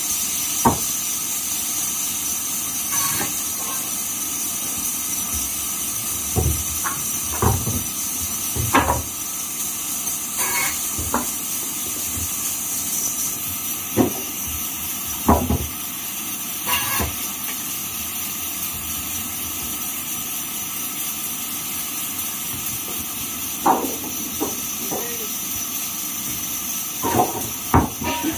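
Large vertical band saw ripping a long wooden plank: a steady high hiss of the blade running through the wood, with scattered short knocks of timber against the saw table.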